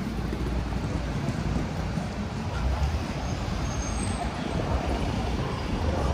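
Street traffic going by: a steady low rumble of engines and tyres on a busy city road.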